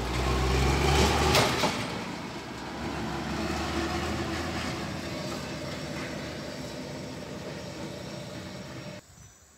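A logging truck's engine running under load as the truck pulls away, loudest in the first two seconds with a couple of clanks, then fading steadily as it drives off. The sound cuts off suddenly near the end.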